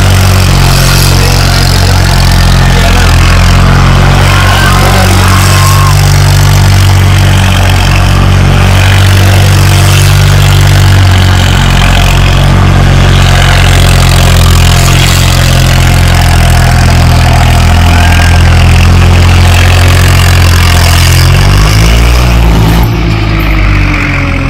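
Diesel tractor engine running loud and hard at steady high revs while the tractor is balanced on its rear wheels and spun in a wheelie stunt. About 22 seconds in, the revs fall away as it comes back down and drives off.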